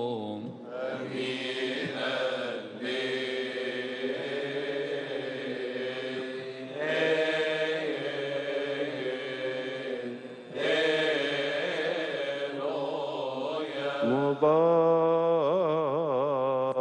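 Coptic Orthodox deacons chanting a liturgical hymn together in long, drawn-out melismatic lines with wavering pitch, pausing briefly a couple of times.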